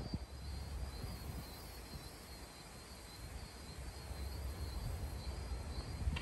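Outdoor ambience on a golf course: a steady, wavering high insect trill over a low wind rumble on the microphone, with a short click at the start and a few short clicks near the end.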